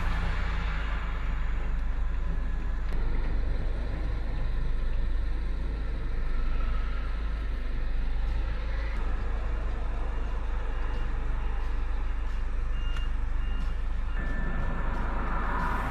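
Engines of tanks and other heavy military vehicles running with a deep, steady rumble. A couple of short high beeps come about 13 seconds in.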